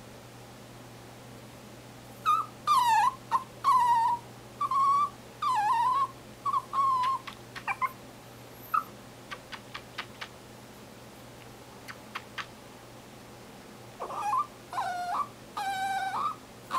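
Papillon dog squeaking: a string of short, high-pitched whining squeaks, each bending up and down in pitch, starting about two seconds in and running for several seconds. A few faint clicks follow, and then more squeaks near the end.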